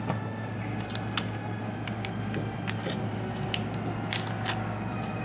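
Scattered small clicks and taps of tools and phone parts being handled during an iPhone repair, over a steady low hum.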